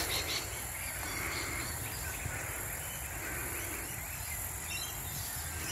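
Outdoor ambience: a steady high-pitched insect chorus over a low rumble.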